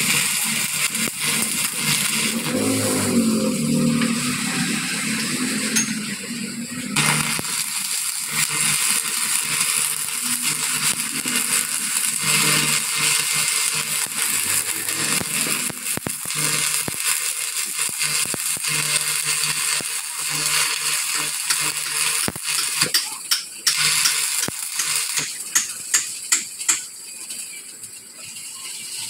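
Stick (arc) welding on a broken truck rear axle housing: the electrode's arc crackles and sizzles steadily, with a quick run of sharp snaps near the end.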